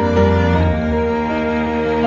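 Background music of long held notes in slowly shifting chords.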